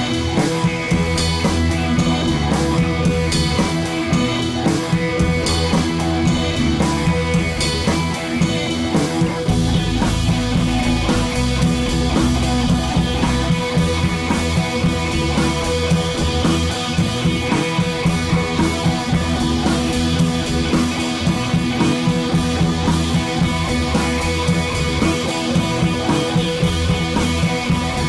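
Background rock music with guitar and drums and a steady beat; it changes about ten seconds in.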